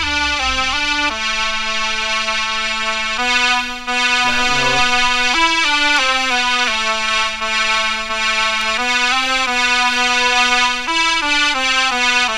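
Sustained software keyboard (synth/electric-piano) notes played through a DAW from a MIDI controller: a low note held underneath while upper notes change every second or two, with no drums.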